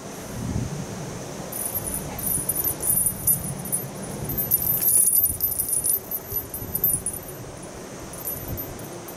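Small bell on a feather wand cat toy jingling on and off as the toy is swung and batted by a cat's paw, loudest around the middle and fading out about two seconds before the end.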